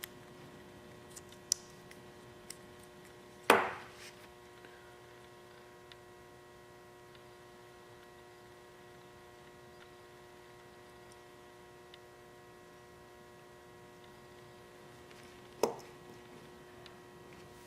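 A steady electrical hum with a few faint clicks. There are two sharp knocks, one about three and a half seconds in with a short ringing tail and a softer one near the end.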